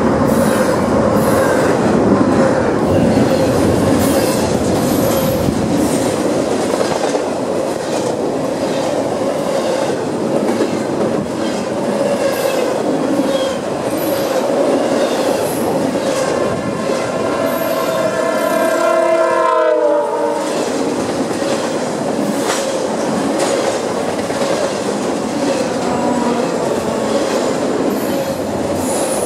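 Double-stack intermodal freight train rolling past at close range, its wheels on the rail making a steady, loud running noise. A train horn sounds from about 16 seconds in: a chord of several notes that swells for about four seconds, then drops in pitch and cuts off suddenly.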